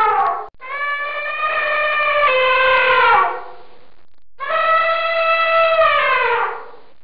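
Elephant trumpeting: two long calls of about two and a half seconds each, each falling in pitch as it ends, after the tail of an earlier call in the first half-second.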